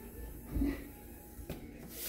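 Faint room tone with a soft low thump about half a second in and a light click about a second later.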